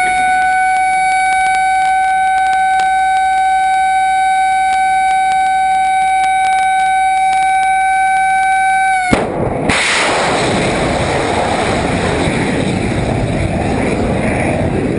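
A steady, siren-like high tone holds for about nine seconds and cuts off suddenly. It gives way to a loud, even rushing roar: the blast of a Tomahawk cruise missile launching from a destroyer's vertical launch system.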